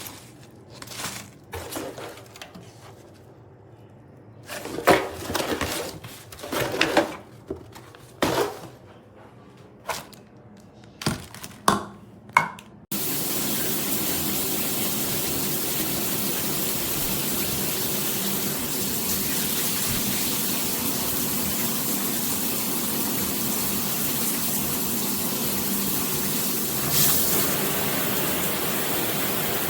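Scattered clicks, knocks and rustles of parts being handled for about thirteen seconds, then, after an abrupt cut, a shower head spraying water steadily and loudly.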